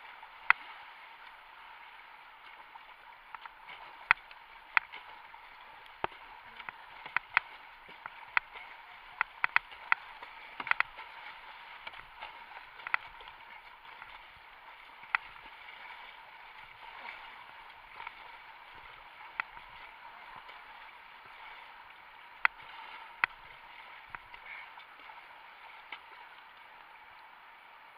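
Whitewater kayak paddling: a steady rush of river water with the splash of the paddle blades. Sharp, irregular clicks and taps run through it, thick over the first dozen seconds and only a few after about sixteen seconds.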